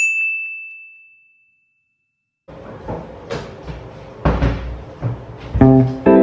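A single bright ding, one clear tone that rings out and fades over about a second and a half, followed by dead silence. Scattered knocks and rustling come in after that, and a plucked-guitar music track starts near the end.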